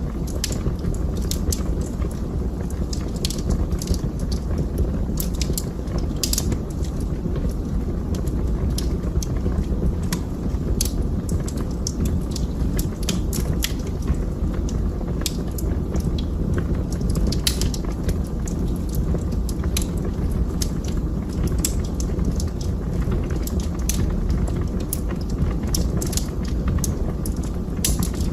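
Wood fire burning in a fireplace: irregular sharp crackles and pops, sometimes several in a second, over a steady low rush of the flames.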